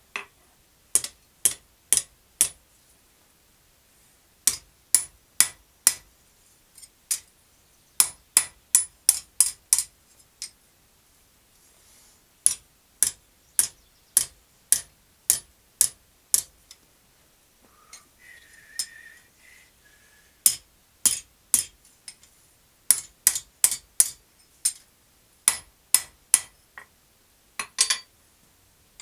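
Blacksmith's hand hammer striking a red-hot steel bar on an anvil: runs of sharp blows, about two a second, broken by short pauses.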